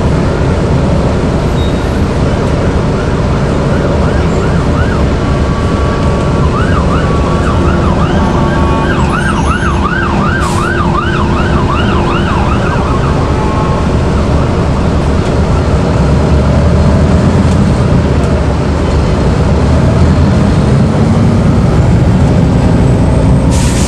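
Inside a NovaBus RTS-06 city bus, its Detroit Diesel Series 50 engine and Allison V-731 automatic transmission drone steadily as it drives. An emergency-vehicle siren sounds from about five seconds in, wailing and then switching to a fast yelp before fading out around the middle. Near the end the engine note rises as the bus picks up speed.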